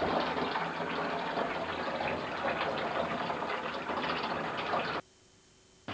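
Tap water running steadily into a basin or tub, a continuous splashing hiss. It cuts out suddenly about five seconds in and is nearly silent for almost a second.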